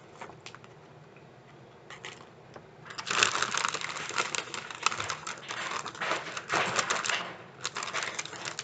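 Crinkly foil snack-chip bags being handled, with a few scattered clicks at first and then about four seconds of dense crackling from about three seconds in, with a shorter burst near the end.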